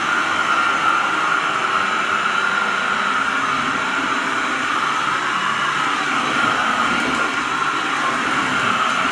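Vacuum cleaner running steadily: a constant high motor whine over a rushing hiss of air.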